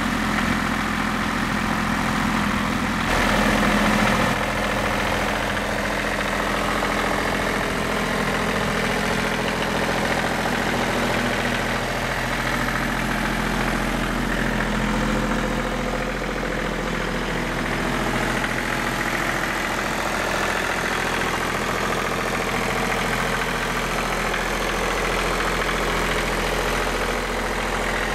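Ford New Holland 1725 tractor's three-cylinder diesel engine running at a steady idle, briefly a little louder a few seconds in.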